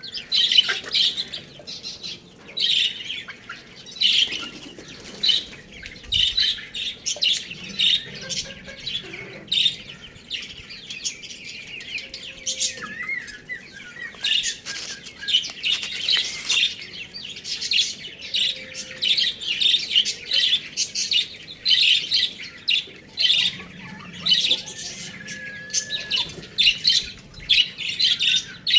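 Many small birds chirping continuously: a dense stream of short, high calls overlapping one another.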